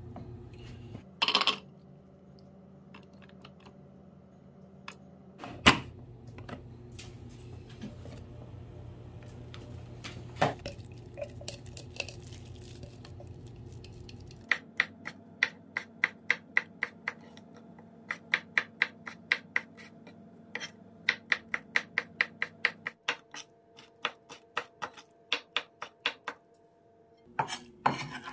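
Knife chopping raw shrimp on a wooden cutting board: quick, even strikes at about four a second, in runs with short pauses, starting about halfway through. Before that there are a few single knocks and clatters.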